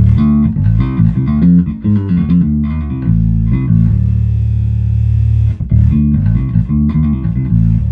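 Electric bass played through an Aguilar Tone Hammer 500 bass amp head: a quick run of plucked notes, a long held low note in the middle, then another run, stopping right at the end.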